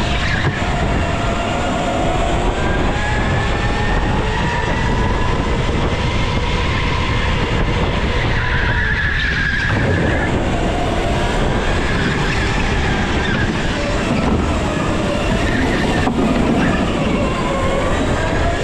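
Racing go-kart heard from the driver's seat, its motor pitch rising and falling as the driver gets on and off the throttle through the corners, with tyres squealing on the concrete.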